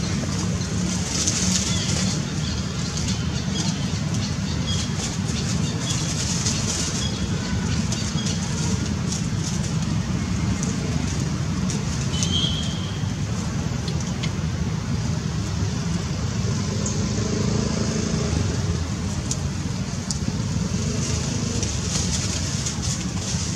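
Steady outdoor ambience: a low rumble with a high hiss over it, faint scattered ticks, and one short high chirp about twelve seconds in.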